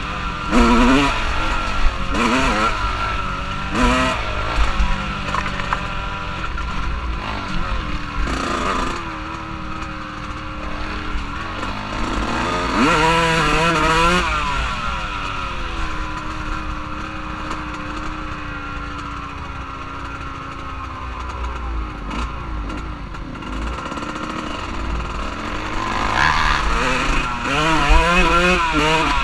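Off-road vehicle engine running under way, revving up hard a few times and holding a steadier, slowly falling note in between, with wind rumbling on the microphone.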